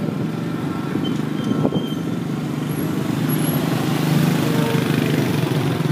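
Small step-through motorcycle engines running close by, getting somewhat louder about four seconds in.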